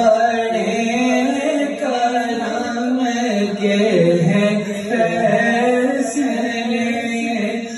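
A man singing a naat (devotional Urdu/Arabic chant) into a microphone, his voice rising and falling in long, held melodic lines. The sound carries the colour of a PA loudspeaker in a reverberant hall.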